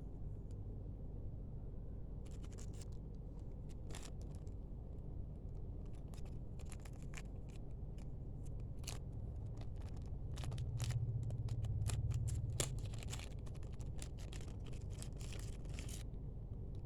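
Scattered small clicks, scrapes and rustles of hand-handled objects, over a steady low hum. The clicks come in clusters between about two and sixteen seconds in, with a brief low rumble about two-thirds of the way through.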